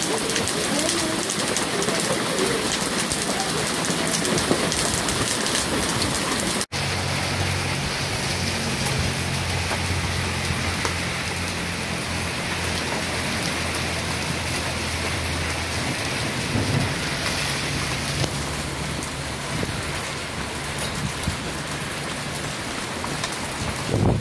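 Heavy rain pouring and splashing steadily on a flooded street. After a brief dropout about seven seconds in, a low rumble joins the rain for several seconds.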